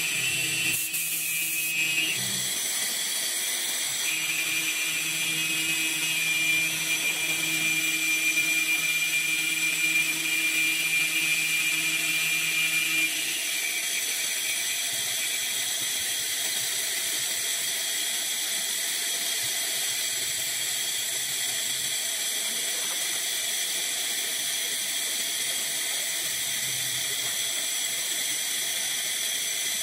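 Vertical machining center's spindle running and its end mill cutting a metal part: a steady high whine over a hiss. A lower cutting tone drops out about 13 seconds in, leaving the whine and hiss.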